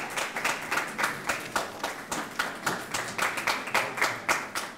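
Audience applause: many people clapping their hands at once, a dense, even patter of claps.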